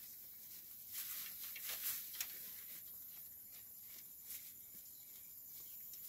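Dorper ewe pulling and chewing dry hay from a hanging slow-feed hay net: faint rustling and crackling of hay, loudest in a cluster about one to two seconds in.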